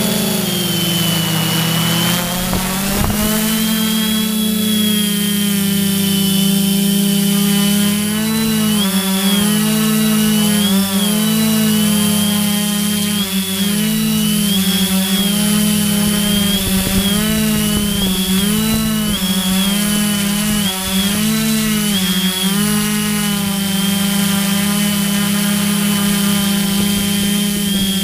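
FPV aircraft's motors and propellers humming, heard from the camera on board. The pitch drops in the first couple of seconds and climbs back; then, from about a third of the way in, the motor notes keep drifting apart and merging as their speeds change during manoeuvring, settling to a steady hum near the end.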